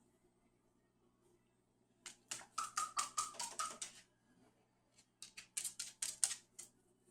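Two quick runs of sharp clicks or taps, about six a second: the first starts about two seconds in and lasts two seconds, with a faint high tone under it, and the second follows a second later.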